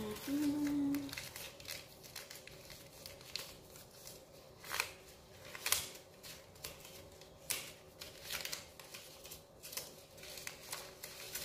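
Hands handling coins and papers on a desk: irregular light clicks and rustles, with a short hummed note at the start.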